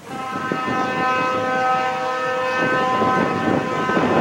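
Multi-tone air horn of South Shore Railroad 'Little Joe' 2-D-D-2 electric locomotive 803 sounding one long, steady chord as it approaches, its lowest note dropping out a little past halfway.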